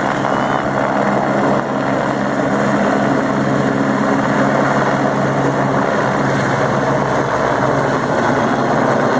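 Helicopter hovering close by: a loud, steady rotor and engine noise with a constant low hum.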